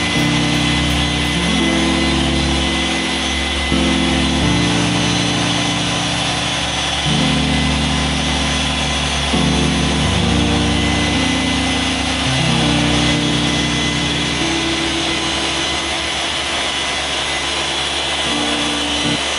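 A dual-action polisher runs steadily with a whine as it works a car's paint, under background music whose chords change every second or two.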